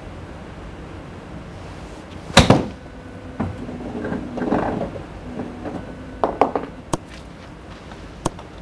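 A golf club striking a ball in a full practice swing: one sharp crack about two and a half seconds in, followed later by a few softer clicks and knocks.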